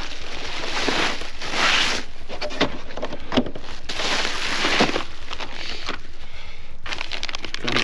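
Bubble-wrap plastic bag rustling and crinkling in several bursts as it is pulled off and lifted away from a folded portable solar panel.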